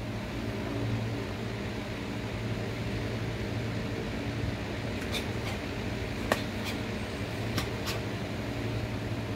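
Steady machine hum, like a fan or air-conditioner motor, with a few short sharp clicks or snaps in the second half.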